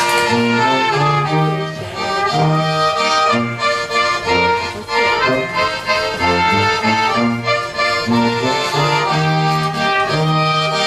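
Folk dance music led by an accordion, with a bass line moving in regular beats under the melody.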